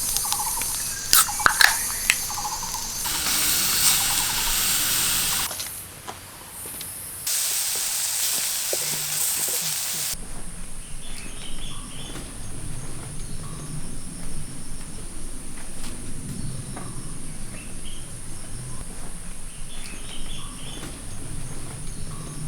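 A few sharp clicks and two stretches of loud hiss, cut one after another. Then, about ten seconds in, a steady high-pitched insect drone takes over, with short chirps every few seconds.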